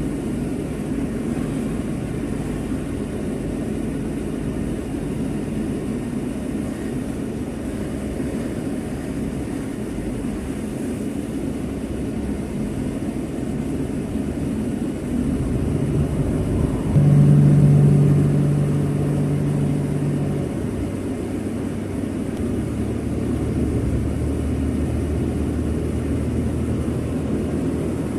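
A vehicle running steadily, with a continuous low rumble and road noise. A louder, steady engine tone comes in for about three seconds past the middle, then settles to a lower hum.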